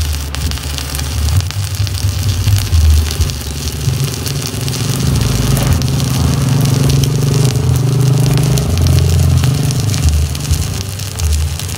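Stick-welding arc from a modified Kodenki 450-watt IGBT inverter welder, crackling and sizzling steadily as a 2.6 mm electrode burns at 80 A. A low hum runs under it throughout.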